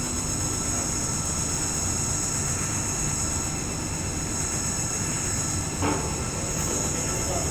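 Washing machine running with a steady low rumble and a high whine, with one short knock about six seconds in.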